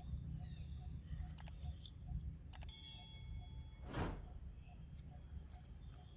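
Faint outdoor ambience with a steady low rumble, a bell-like ding about two and a half seconds in that rings for under a second, and a brief whoosh near four seconds.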